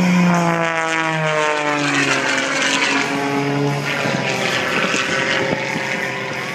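Propeller airplane passing by, its engine drone sliding down in pitch over the first few seconds as it goes past, then carrying on at the lower pitch.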